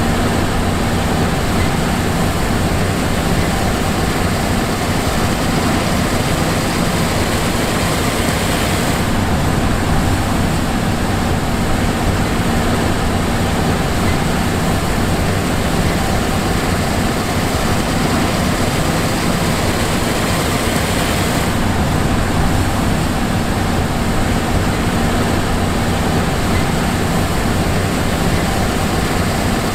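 John Deere S780 combine harvester running: a steady engine drone with a constant low hum and hiss, the hiss thinning briefly twice.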